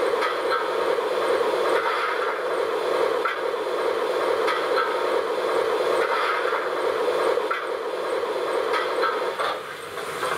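Steam-locomotive sound from the ESU LokSound 5 XL decoder in an LGB model of the Harz narrow-gauge Neubaulok, playing the Schwoboda project's own recordings through the model's loudspeaker: a steady rushing noise with faint irregular ticks, dropping in level near the end.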